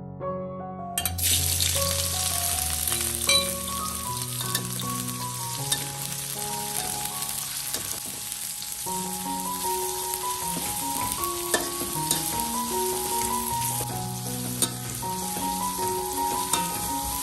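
Food frying with a steady sizzle in a hot pan, starting suddenly about a second in, with occasional sharp clicks of a utensil stirring against the pan.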